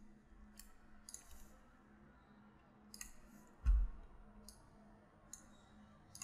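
Computer mouse clicking: several short, sharp clicks at irregular intervals, with one dull thump a little past the middle.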